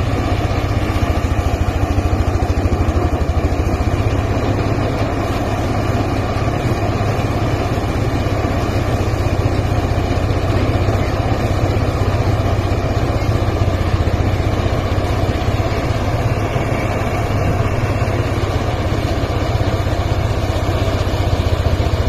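Engine-driven portable rice thresher running steadily while threshing rice stalks, a constant low engine hum that does not change pace.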